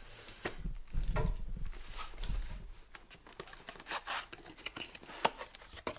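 A camera's cardboard box and its packaging being handled and opened by hand: rustling, scraping and tearing, with a low bump about a second in and a few sharp clicks near the end.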